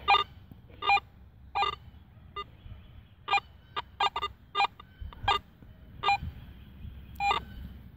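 Garrett AT Pro metal detector sounding a dozen or so short, broken beeps at uneven intervals as its coil passes over a steel nut. The erratic, jumpy response shows the detector struggling to settle on a ferrous target in Pro mode.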